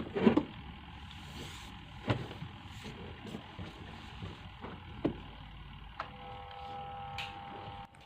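Akari Turbo Spin twin-tub washing machine's spin motor humming without turning, along with the running of the spin timer and a few clicks. A steadier tone joins about six seconds in. The motor hums but will not spin, a fault the repairer blames on the start capacitor.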